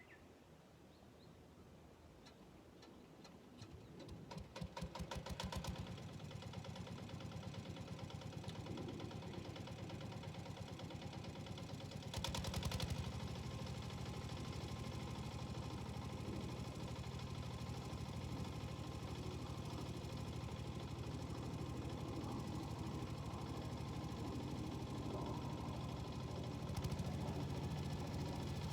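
Yanmar walk-behind tiller's diesel engine starting: fast firing picks up about four seconds in and settles into steady running, with a brief louder burst about halfway through.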